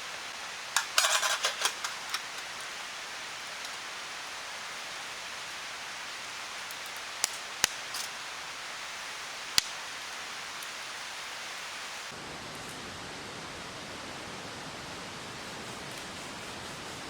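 Wood fire burning in a campfire stand: a steady hiss, a quick run of crackles about a second in, and a few single sharp pops later.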